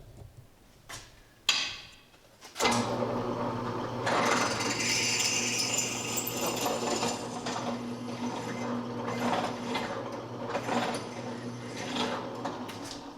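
A drill press starting up a couple of seconds in after a click, then running steadily as a 19/64-inch bit drills out an old thread-insert coil to enlarge a bolt hole in a tractor's power takeoff housing.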